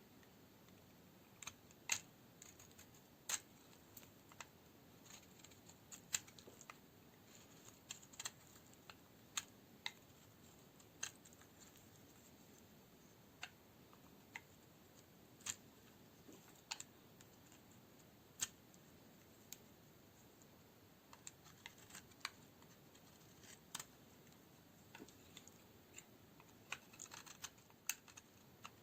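Knife cutting dry green Duru coniferous bar soap into cubes: crisp, irregular cracks and snaps as the hard, dry soap gives under the blade, with a few pauses of a few seconds between cuts.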